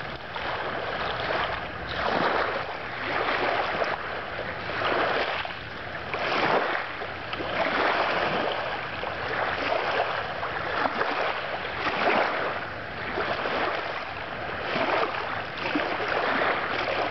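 Small waves lapping and washing in over a pebble-and-rock shoreline, each wave a swelling rush of water every second or two.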